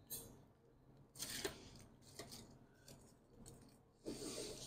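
Faint crackling and rustling of crisp fried pork rinds in a pot of red salsa. Near the end a slotted metal spoon pushes into the pile, and the scraping and crunching get busier.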